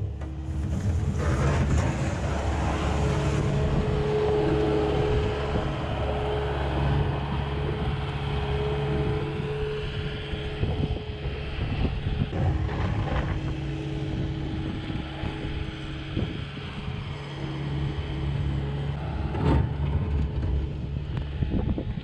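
Kubota skid steer loader's diesel engine running under load as it pushes snow along pavement with its bucket, driving away and growing a little fainter.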